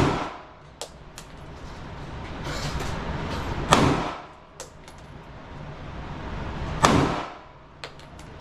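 Three gunshots about three seconds apart, one right at the start, one near 4 s and one near 7 s, each with a short echoing tail. Fainter sharp cracks fall between them.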